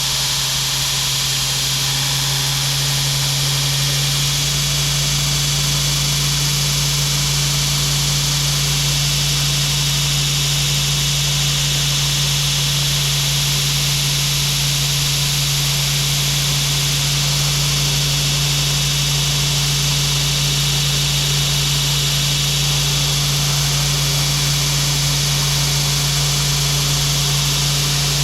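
Electric motor running steadily: a low hum with a loud, even hiss over it.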